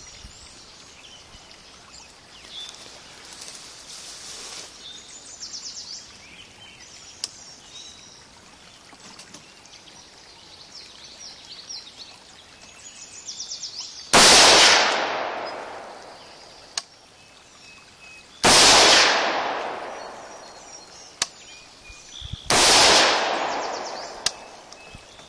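Three shots from an AR-style rifle, about four seconds apart, each trailing off over a couple of seconds. Birds chirp throughout, the only sound for the first dozen seconds or so.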